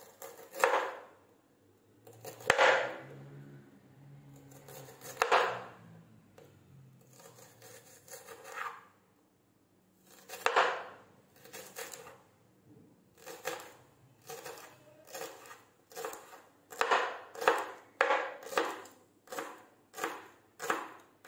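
Kitchen knife slicing through the white bulbs of green garlic onto a cutting board, each cut a crisp crunch ending in a knock of the blade on the board. The cuts come a few seconds apart at first, then settle into a steady rhythm of about two cuts a second in the second half.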